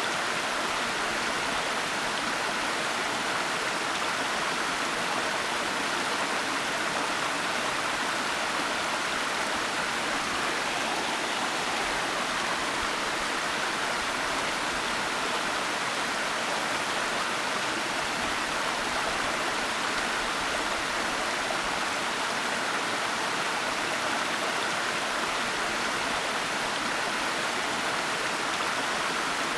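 Waterfall rushing: a steady, even hiss of falling water, strongest in the middle-high range, with no breaks or separate splashes.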